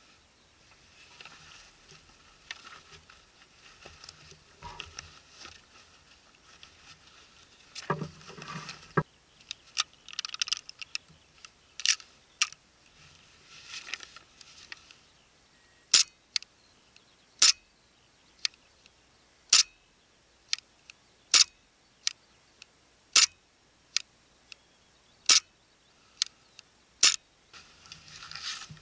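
Gas blowback airsoft pistol firing 0.25 g BBs through a chronograph in a velocity check: about a dozen sharp cracks, roughly one a second, in the second half, after some quieter handling clicks and rustling.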